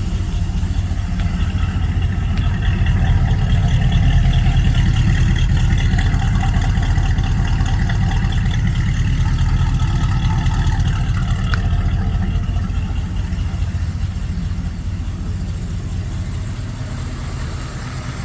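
Holden 308 V8 running at idle through its extractors and newly welded exhaust, a steady deep rumble that swells a little over the first few seconds and then slowly eases back. The choke is still partly engaged, the owner thinks.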